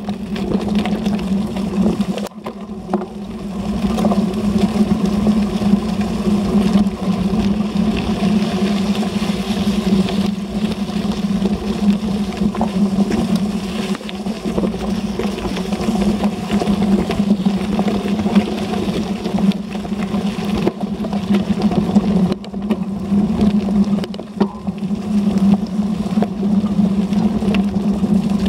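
Wind and rolling noise picked up by a bike-mounted camera riding a gravel trail: a steady low hum with jolts and rattles from the rough surface.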